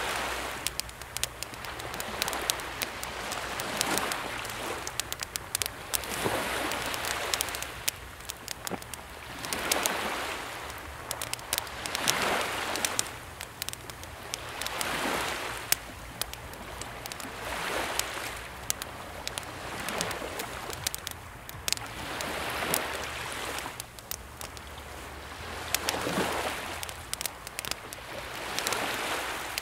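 Wood campfire crackling with many sharp pops, over small, calm sea waves washing onto the shore about every two to three seconds.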